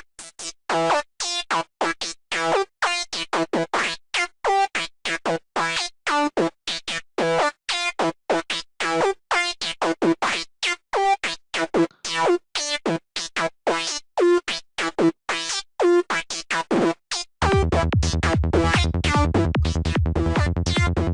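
Sylenth1 software-synth lead for psytrance night full-on, playing a rapid staccato riff of short, bright, high notes through a bandpass filter. About 17 seconds in, a continuous, heavy bass part comes in under the lead.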